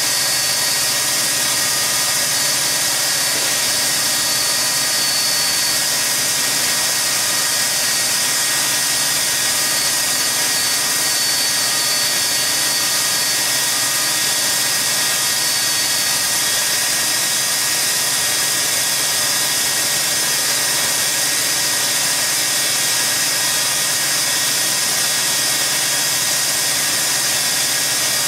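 Industrial band saw for cutting metal sheet and plate, running steadily through a thick metal slab: an even, high-pitched hiss with a faint steady whine in it.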